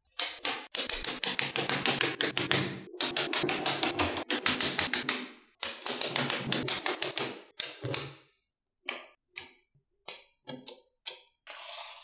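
Small magnetic balls clicking as they snap together and onto each other, in a fast clatter for the first seven or so seconds, then in single clicks a fraction of a second apart.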